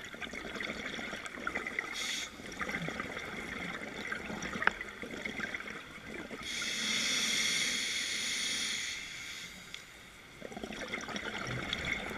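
Scuba diver breathing through a regulator, heard underwater: bubbly exhalations, with one steady hissing inhalation about halfway through.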